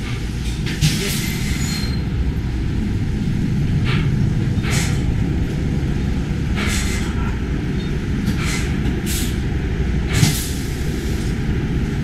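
Industrial laundry pressing machines running with a steady low drone, broken by a series of short hisses, about seven, from the presses releasing steam or air; the longest hiss comes about a second in.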